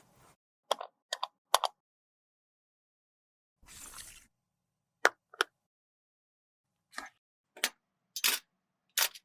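Small cosmetic items and tools being handled: about nine short, crisp taps and clicks in small groups, three close together near the start, with a brief rustle about four seconds in.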